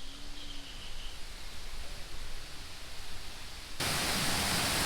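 Faint outdoor ambience, then near the end a sudden loud, steady rush of a waterfall.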